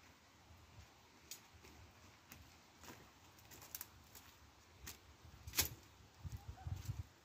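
Irregular faint clicks and knocks, the sharpest a little past halfway, with low rumbling bumps near the end.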